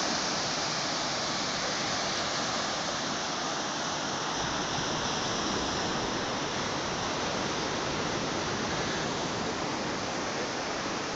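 Steady rushing wash of ocean surf breaking on a sandy beach.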